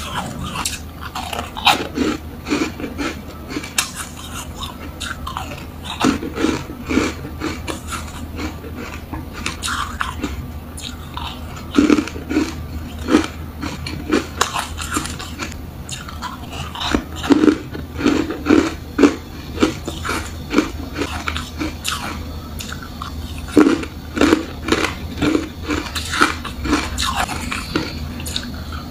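Yellow foam ice being bitten and chewed, close-miked: sharp crunches come in quick runs of several bites and chews every few seconds.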